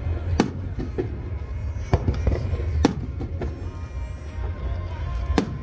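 Fireworks shells bursting in the sky: sharp bangs at irregular intervals, the loudest about half a second, two, three and five and a half seconds in, with smaller pops between them, over a steady rumble and music.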